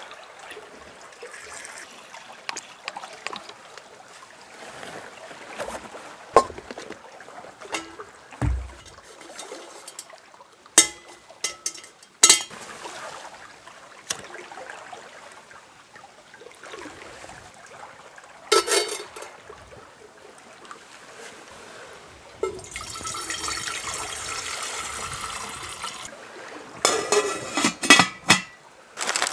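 Metal clinks and knocks as a small folding steel stove, its brass burner and a stainless billy pot are handled and set up. Near the end, liquid pours for about three seconds, followed by a quick run of clinks as the pot's lid goes on.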